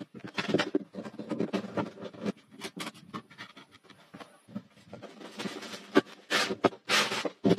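Wooden boards and a door panel being handled and fitted: an irregular run of short knocks, scrapes and creaks of timber, louder near the end.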